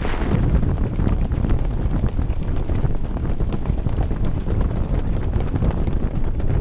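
Hooves of several trotting harness horses beating on a dirt track, a fast, continuous clatter, heard from a moving sulky under heavy wind rumble on the microphone.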